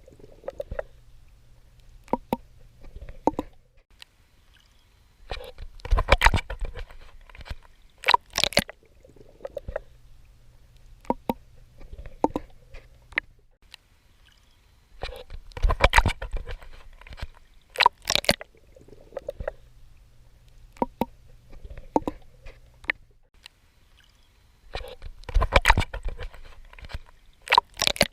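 Swimming in the sea: clusters of sharp splashes and gurgles from strokes in the water, repeating about every ten seconds as a loop, with a low steady hum in the pauses between.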